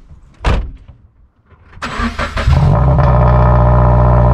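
A car door shuts with a thump about half a second in. About a second later the Scion FR-S/Subaru BRZ/Toyota 86's 2.0-litre flat-four cranks and fires through its Invidia N1 cat-back exhaust. It then settles into a loud, steady idle.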